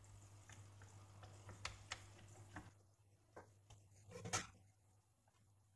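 Faint, scattered clicks and taps of a plastic portable radio's case being handled and closed up, with a sharper click about four seconds in, over a low steady hum.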